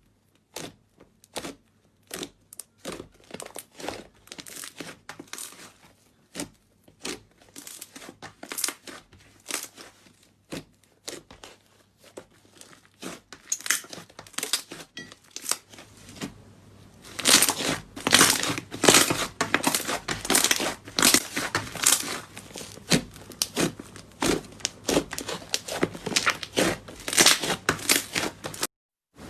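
Slime being squeezed and stretched by hand, giving a steady run of small crackling, popping and tearing sounds. The crackles grow louder and denser about halfway through.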